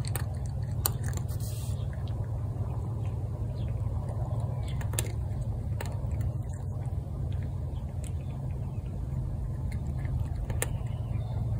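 A cat crunching dry kibble from a bowl, with a few sharp clicks of chewing scattered through. Under it runs a steady low engine-like hum, the loudest sound.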